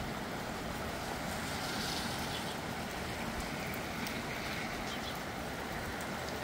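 Rain falling in wind: a steady rushing noise with a few faint ticks of drops.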